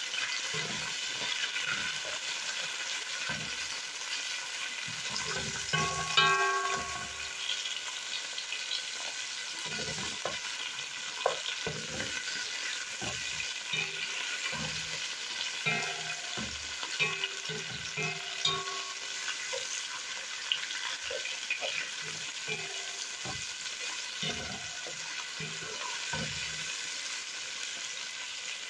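Chopped carrots, bell peppers and onion sizzling in hot oil in a granite-coated pot, with a wooden spoon stirring and scraping through them in scattered knocks. A louder ringing clank comes about six seconds in.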